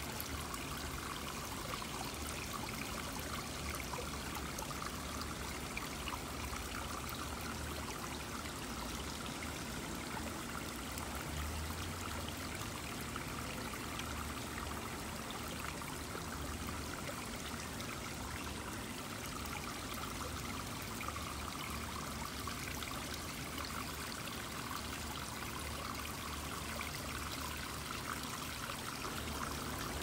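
Shallow stream water running steadily and trickling down mossy rock ledges into a small pool.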